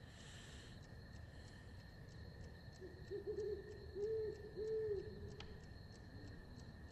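An owl hooting, a short series of four hoots about halfway through, over the soft, even ticking of an alarm clock, about three ticks a second.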